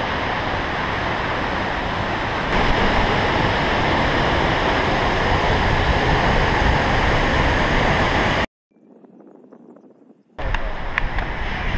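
Steady rushing of a tall waterfall's plunging water, stepping up in loudness about two and a half seconds in. It cuts off abruptly about two-thirds of the way through into near silence for about two seconds. Then a similar rushing noise with a few sharp clicks returns.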